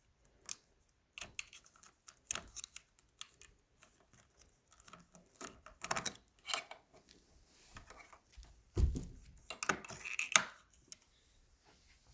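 Irregular plastic clicks and taps from the vacuum being handled, with a heavier thump about nine seconds in. The vacuum's motor is off.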